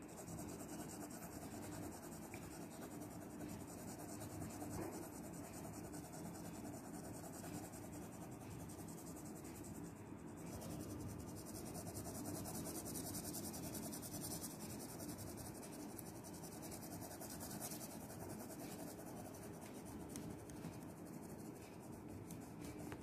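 Graphite pencil scratching lightly on paper in small shading strokes, faint and continuous.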